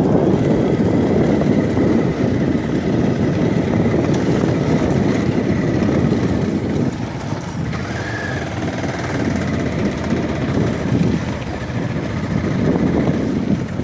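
Motorcycle running along a rough gravel track, the engine mixed with wind and road noise, easing off a little about halfway.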